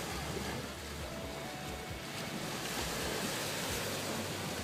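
Small waves washing onto a sandy shore, with wind gusting over the microphone.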